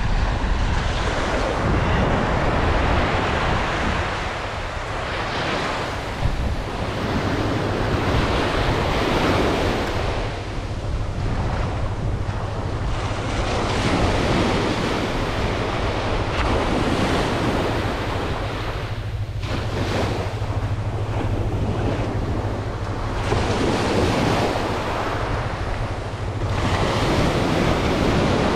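Ocean surf breaking and washing up a sandy beach, swelling and fading every few seconds, with wind buffeting the microphone as a steady low rumble underneath.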